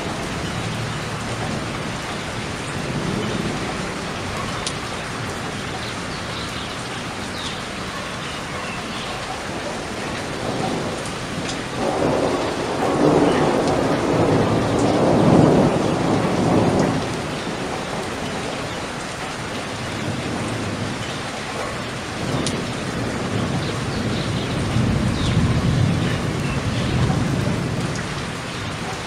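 Steady rain falling, with a low rumble of thunder that swells up about halfway through and lasts several seconds, and a weaker rumble near the end.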